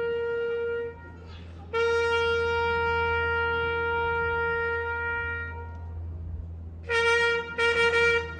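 A solo trumpet playing a slow ceremonial salute call: a long held note ends about a second in, a second long note of the same pitch is held for about four seconds, then shorter notes follow near the end.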